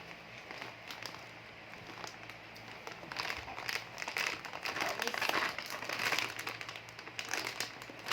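Foil-plastic Ciki Balls snack bag crinkling as it is gripped and pulled at, the bag not giving way. Faint at first, then louder irregular crinkling from about three seconds in.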